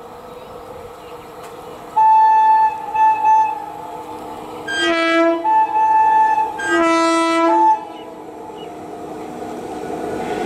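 Horn of an Indian Railways WAG-7 electric freight locomotive sounding in several blasts over about six seconds, switching between a higher and a lower tone. Under it runs the steady rumble of the approaching freight train, growing louder near the end.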